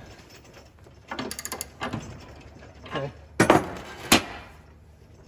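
Socket ratchet clicking as it turns the upper control arm shaft, threading it into its bushing: a quick run of clicks a little over a second in, then single clicks, and two loud sharp metal knocks about three and a half and four seconds in.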